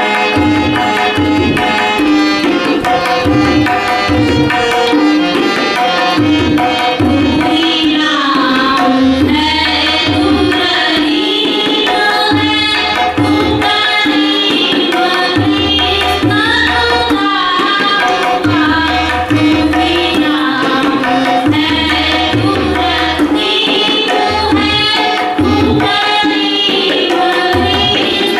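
Devotional bhajan: tabla and harmonium playing together, with a woman's singing voice coming in about eight seconds in over the harmonium drone and tabla strokes.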